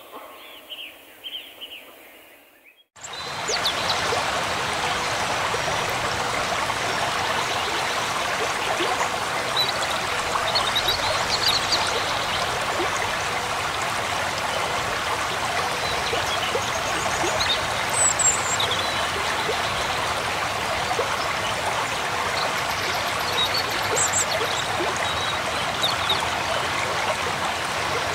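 Mountain stream rushing over boulders: a steady rush of water that comes in suddenly about three seconds in. Before it, quieter forest with birds calling, and a few high bird chirps sound over the water now and then.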